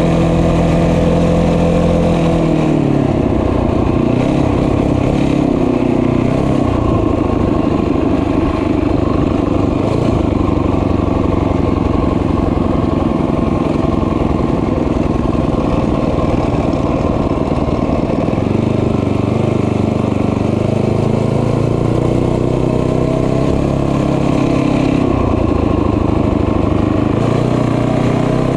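Small motorbike engine running under way, loud and continuous, its pitch dipping and rising as the throttle is eased and opened.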